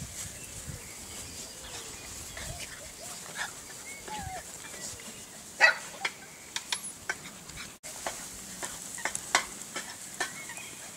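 Golden retriever puppies scampering through grass: a steady rustle with scattered light clicks and a few faint puppy squeaks, and one sharper, louder sound about halfway through.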